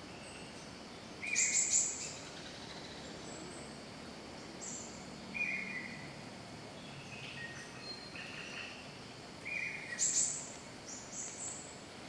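Great hanging parrot (Sulawesi hanging parrot) giving short, high-pitched calls: three louder ones about four seconds apart, about a second in, midway and near the end, with fainter, shorter notes between, over a steady background hiss.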